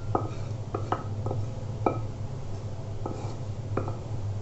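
Serving spoon clinking and knocking against the cooking pan and bowl as curry is scooped out. About seven short clinks, each with a brief ring.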